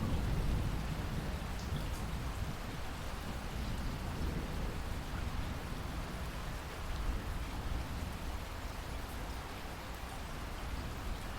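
Heavy rain falling steadily, with the low rumble of thunder dying away in the first second or two.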